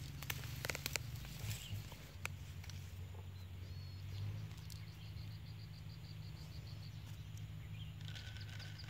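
A few light clicks and handling noises in the first couple of seconds, then a bird in the background calling a quick run of evenly spaced high notes, about five a second, with another short call near the end, over a steady low hum.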